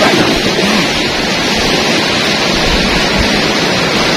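Loud, steady rush of sea surf breaking on a rocky shore.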